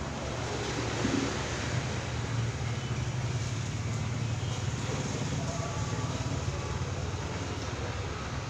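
Steady low rumble of road traffic, with a brief louder swell about a second in.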